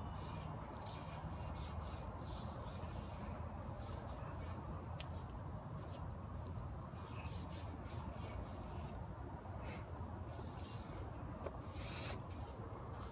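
Broom bristles brushing paint across a surface in repeated, irregular strokes, a scratchy swishing that swells and fades.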